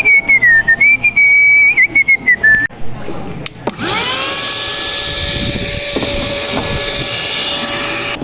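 A person whistles a short wavering tune. After a click, an electric motor spins up with a rising whine and runs steadily at a high pitch.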